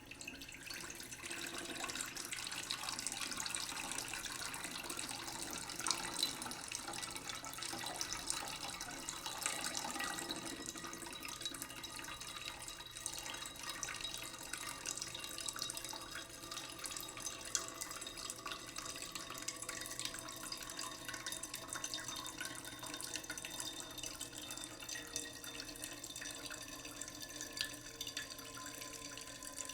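Water running steadily from a tap into a sink, with small drips and splashes.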